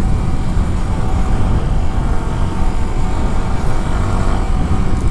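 Yamaha YZF R15 motorcycle's single-cylinder engine running at a steady pace on the move, mixed with heavy low wind rush on the rider's microphone.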